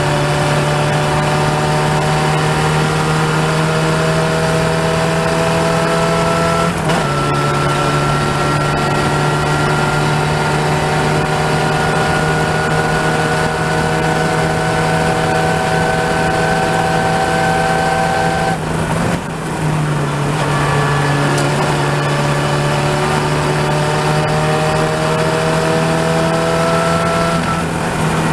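Open-wheel race car engine heard on board at racing speed, its pitch climbing steadily as it pulls through the gears, with short breaks in the note about seven and nineteen seconds in.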